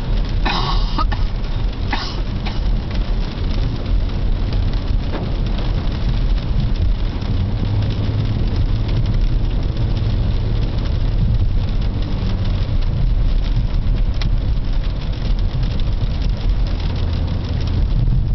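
Road noise inside a moving Chrysler 300's cabin in the rain: a steady low rumble of engine and tyres with an even hiss, likely from tyres on wet pavement. There is a brief swish about half a second in and a shorter one at about two seconds.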